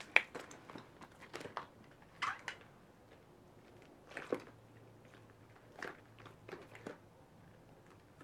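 Long latex elbow gloves being worked over oiled arms: a handful of short rubbing and crinkling sounds of rubber on skin, spaced a second or two apart, the sharpest just after the start.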